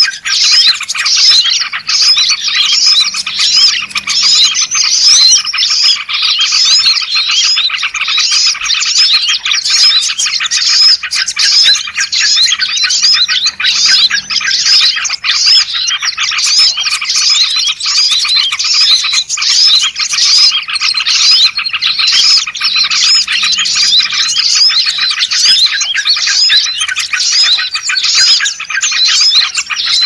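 A dense, continuous chorus of many small birds chirping and twittering rapidly, from a bird-luring (pikat) recording meant to draw small birds such as bulbuls in.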